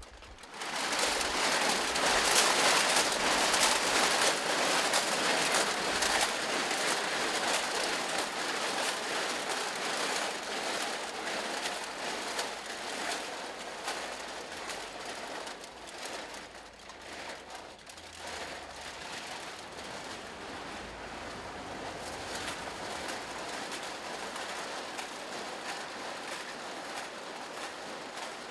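Dense crackling rattle of many small objects on the performers' costumes shaken as they move. It starts suddenly about half a second in and slowly fades as they walk away.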